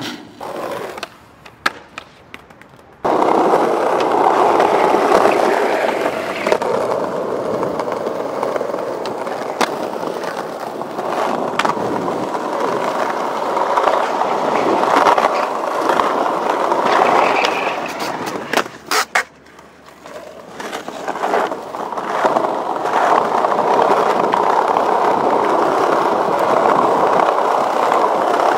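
Skateboard wheels rolling over stone paving slabs, a steady gritty rumble. It is broken about two-thirds of the way through by a pair of sharp board clacks and a short lull. A few lighter clicks come in the first few seconds before the rolling starts.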